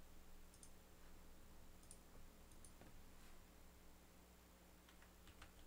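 Near silence: a faint steady hum with a few faint, scattered clicks from a computer at the desk, several coming close together near the end.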